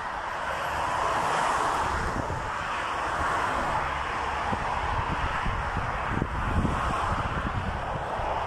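Steady rush of road traffic from cars passing on the street, with wind buffeting the microphone in low rumbles.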